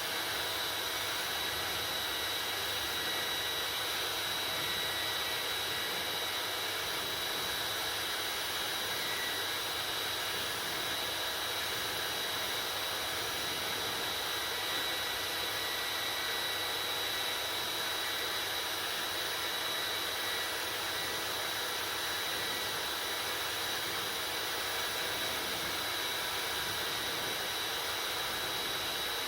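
Hair dryer running steadily: a constant rush of blown air with a steady high-pitched motor whine over it.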